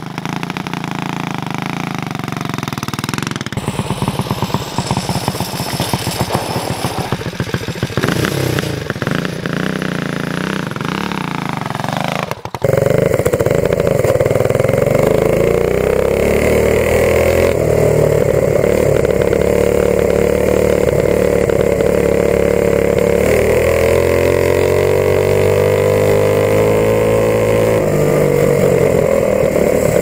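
A homemade mini bike's small gas engine revving and pulling away, its pitch rising and falling. About twelve seconds in the sound cuts to a closer, louder run near full throttle, the engine note climbing and easing again.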